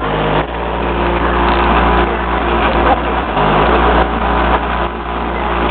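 12-inch subwoofers playing bass-heavy rap loudly through a factory car stereo: deep held bass notes that shift pitch a few times, under a rough, noisy hiss.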